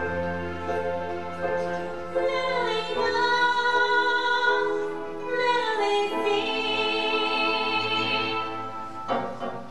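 Stage-musical singing: long held notes, with the pitch rising twice, about two and about five and a half seconds in. The held singing breaks off shortly before the end.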